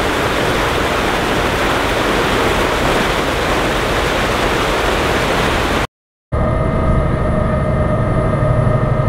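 Steady rushing of a motor ship's churning wake and wind at the stern. It cuts off suddenly about six seconds in, and after a short gap the ship's engine hum takes over: a steady low drone with a few held tones.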